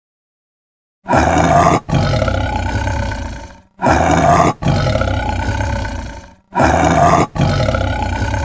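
Tiger roaring three times in a row, starting about a second in. Each roar is a short opening burst, a brief break, then a longer call that trails off.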